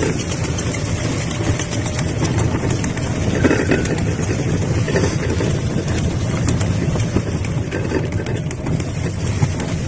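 A vehicle's motor running steadily with a low rumble as it tries again to climb a snowy slope.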